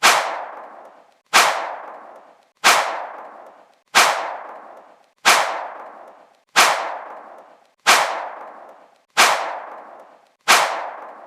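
A sharp crack sound effect played again and again, identical each time, about every 1.3 seconds, nine times in all. Each crack fades away over about a second.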